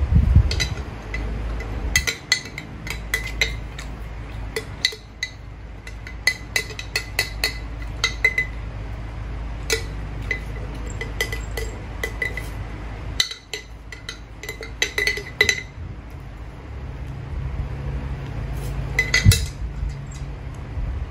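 Cutlery clinking against a bowl in quick clusters of short ringing taps, as noodles are eaten, over a steady low background rumble.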